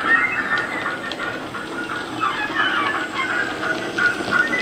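Model USA tank locomotive's Loksound 5 micro sound decoder playing steam locomotive sounds through the model's small speaker as it runs, with wavering high tones and faint clicks.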